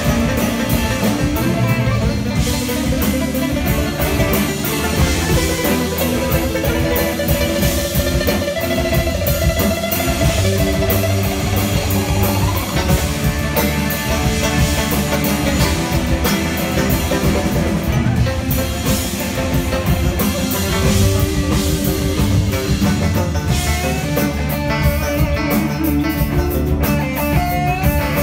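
Live electric band playing an instrumental passage: electric mandolin and electric guitar lines over bass guitar and drum kit, with one sustained note sliding upward about twelve seconds in.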